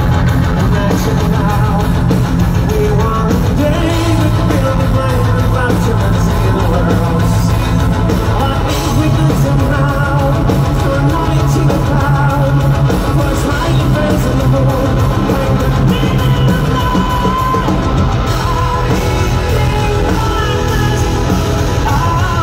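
Live power metal band playing at full volume: distorted electric guitars, bass, keyboards and a drum kit, with a male lead singer singing over them.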